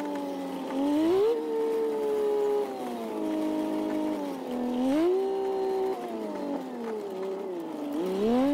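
The bus's engine runs as the bus is driven slowly. Its pitch sinks gradually, then rises sharply about a second in, again around five seconds in, and once more near the end.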